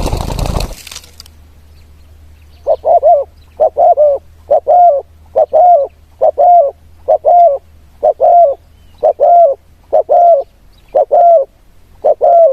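Decoy zebra dove cooing: a steady series of short, quick coos, one about every second. They start about two and a half seconds in, after a brief loud rustling burst at the very start.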